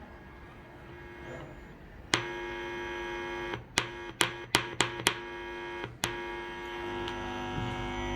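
A steady electronic tone with many overtones begins with a sharp click about two seconds in. Six more sharp clicks break into it, most of them in a quick run around the middle.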